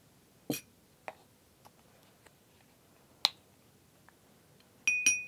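Small clicks and knocks of a metal spoon and glass bowls being handled, with a sharp click a little past three seconds in. Near the end comes a ringing clink of the spoon against a glass bowl.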